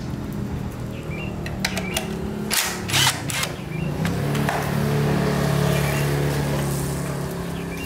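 A small motor running with a steady hum. Its pitch rises about three and a half seconds in and eases back down near the end, and several sharp clicks and knocks fall in the first half.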